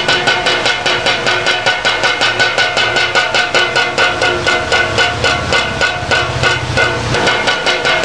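Bird-scaring windmill (kincir angin pengusir burung) clattering in the wind, its beaters knocking on a can in a fast, even rattle of about seven knocks a second with a steady metallic ring.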